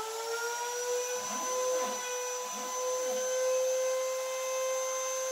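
CNC router spindle motor running at a steady high whine as it plunges to drill a hole, with a few short rising-and-falling tones underneath between about one and three seconds in.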